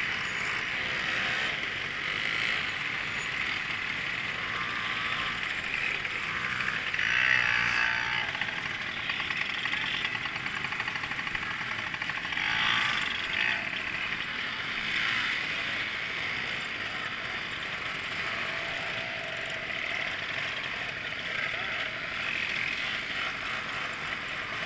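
Steady outdoor din of a crowd of moped riders milling about with their machines, with mechanical clicking and rattling and a couple of louder swells.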